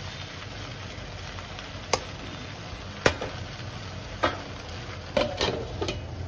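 Okra frying with a steady low sizzle in a steel kadhai, broken by a few sharp metal clinks as the spatula and then a steel plate lid touch the pan, the clinks coming closer together near the end as the lid goes on.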